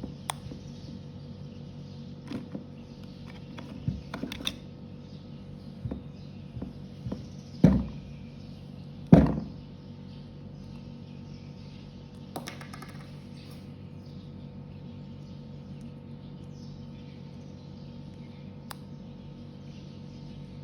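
Handling of toy action figures and their packaging: scattered light clicks and taps, with two louder thumps about eight and nine seconds in, over a steady background hum.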